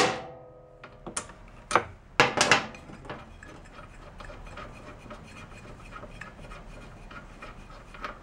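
A socket wrench on the spark plug of a Honda mower engine: a sharp metal clink with brief ringing, a few more clanks, then a run of light ticks as the plug is unscrewed.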